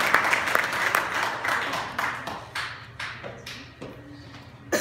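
Small audience applauding: dense clapping that thins out and dies away over about three seconds, leaving a few scattered last claps.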